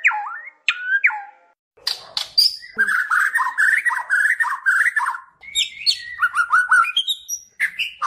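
White-rumped shama (murai batu) singing: a few clear gliding whistles, a brief pause about a second and a half in, then a fast, varied run of whistles, chatters and clicks.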